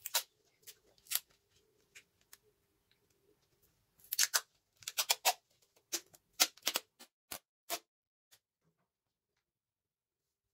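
Clear cello tape being pulled off its roll and cut, in a series of short rasping pulls, snips and handling clicks.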